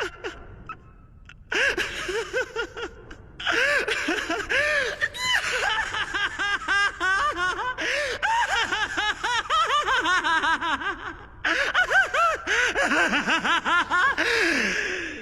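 A man laughing maniacally in long runs of rapid, high-pitched cackles. There is a short break about three seconds in and another about two-thirds of the way through, and the laugh ends on a falling note.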